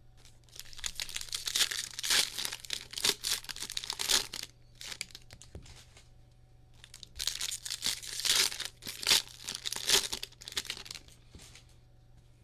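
Foil trading-card pack wrappers being torn open and crinkled, in two bouts of crackling a few seconds each.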